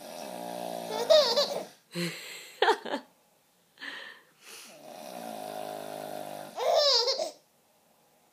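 A man snoring in two long drawn-out breaths, each answered by a baby's high-pitched squealing laugh.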